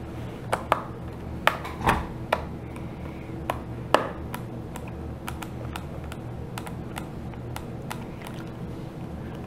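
Small precision screwdriver working a screw out of the plastic back case of a TI-83 Plus graphing calculator: sharp light clicks and taps of metal on the screw and plastic. Several louder clicks come in the first four seconds, then only faint irregular ticks.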